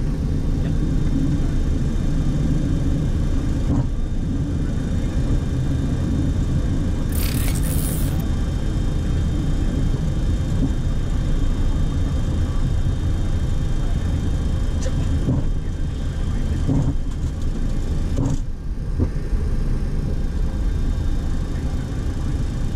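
Steady low rumble on the flight deck of a Boeing 737-800 rolling slowly on the ground after landing. A short hiss comes about seven seconds in, and a few soft clicks follow later.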